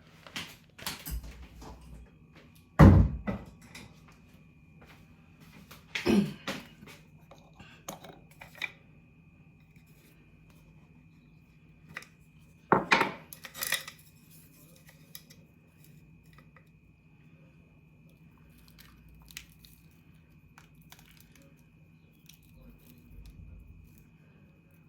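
Kitchen handling sounds while seasoning chicken wings: three loud separate thuds and clatters of kitchenware, about three, six and thirteen seconds in, with smaller knocks and clicks between them.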